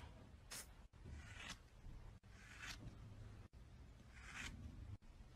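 Scissors snipping through a dog's long fur: four faint, crisp swishing cuts spread over a few seconds.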